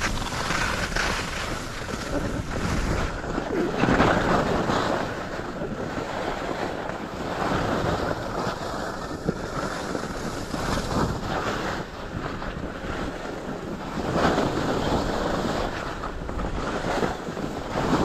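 Skis scraping and carving over firm, chopped-up groomed snow through a series of turns, with wind rushing over the microphone. The scraping swells loudest about four seconds in and again near the end.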